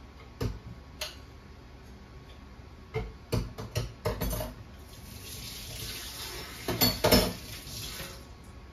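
Dishes and utensils clinking in a stainless-steel kitchen sink, then the tap running for a few seconds from about five seconds in, with the loudest clatter of dishes under the running water near the end.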